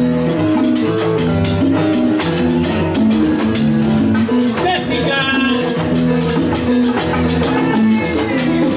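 Live salsa band playing: an electric keyboard sounding chords over steady Latin percussion.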